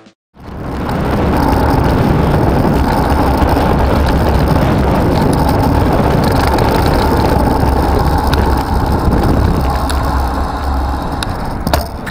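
Bus diesel engine running close alongside, with road noise and a low wind rumble on the microphone. The deep rumble drops away near the end.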